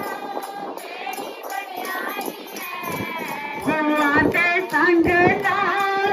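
Devotional Punjabi bhajan singing amplified through a loudspeaker: one voice holding long, bending notes of the melody.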